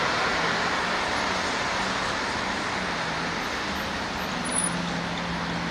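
Steady highway traffic noise with a low, steady hum underneath.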